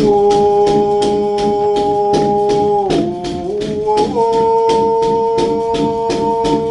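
Shaman's hide frame drum (kam drum) beaten steadily at about four strokes a second, its metal pendants rattling with each stroke, under a man's voice holding a long droning note. The note breaks off about three seconds in, and a slightly higher one is held from about four seconds.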